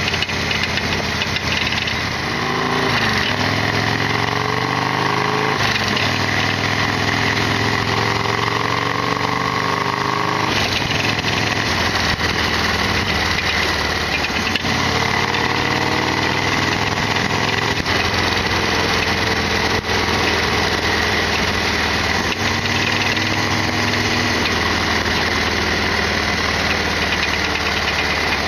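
Harley-Davidson Sportster XL1200R's air-cooled 1200 cc V-twin running under way on the road. Its pitch climbs about four times as it pulls through the revs, each climb ending in a drop. A steady high whine runs over the engine note.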